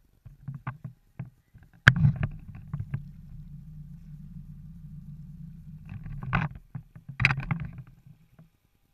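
Low steady drone of a boat motor. It begins with a sharp knock about two seconds in and carries two rougher, louder bursts near the end.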